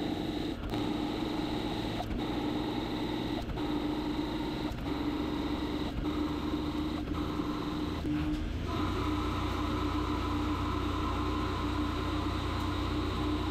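CNC machine tool running a cut: a steady tone with a short click about every second and a half. About two-thirds of the way in, a higher-pitched whine joins and a deeper hum grows louder, as the machine moves into another cut or speed.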